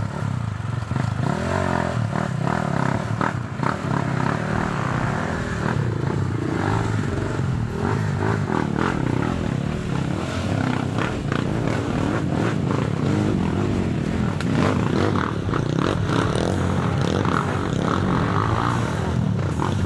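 Dirt bike engines running unevenly on a steep off-road climb, with scraping and clattering of the bikes throughout.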